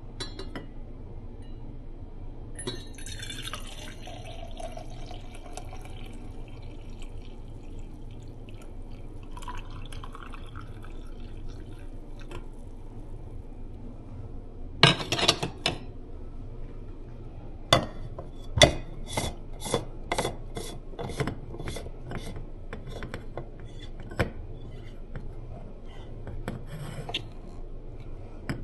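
Coffee poured into a cup, then a run of sharp clinks against the cup, about two a second.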